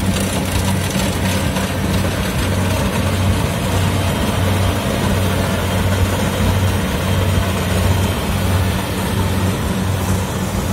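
Kubota DC70 rice combine harvester running steadily as it cuts and threshes rice, its diesel engine a steady low drone under the noise of the machine.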